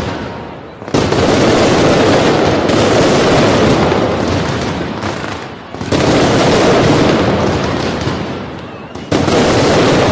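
Fireworks display: a dense, continuous barrage of bangs and crackles. It tails off and then comes back at full strength suddenly, about a second in, about six seconds in and again about nine seconds in.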